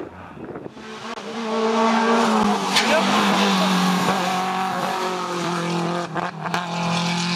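Rally car engine at high revs, starting loud about a second in and running steadily, the pitch dipping briefly around two seconds in. A few sharp cracks are heard, one near three seconds and two close together near six seconds.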